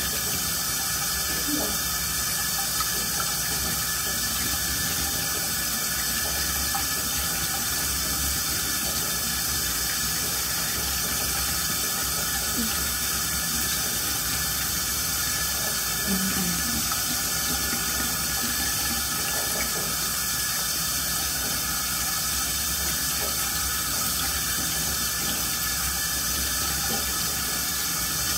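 Bathroom sink tap running, a steady rush of water into the basin.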